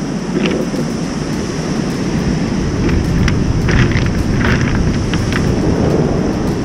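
Surf breaking and washing onto a cobblestone beach, with wind on the microphone. A few short clacks and crunches of rounded beach stones underfoot come between about three and five seconds in.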